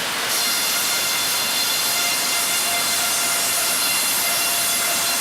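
Sawmill machinery running steadily: an even, high hiss with several faint steady whines underneath.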